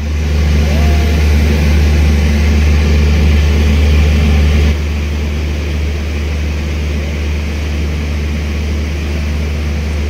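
Railway locomotive running close by: a loud, steady low engine drone that suddenly drops to a lower level about halfway through.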